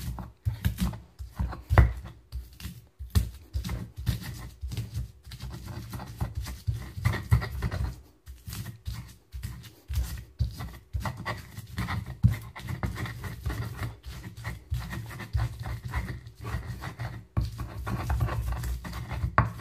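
Pestle grinding and pounding garlic with a little salt in a mortar (Indonesian ulekan): a continuous run of irregular knocks and scrapes.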